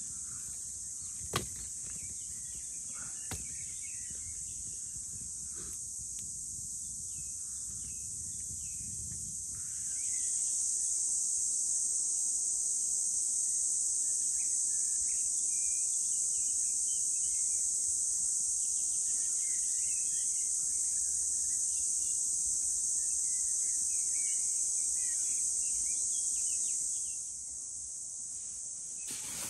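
Steady high-pitched insect chorus in summer woodland, with scattered bird chirps beneath it. The insects grow louder about a third of the way in and drop back shortly before the end. A sharp click sounds early on.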